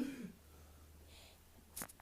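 Mostly quiet, with the tail end of a woman's voice at the very start and a quick, sharp double intake of breath near the end: the build-up to a sneeze.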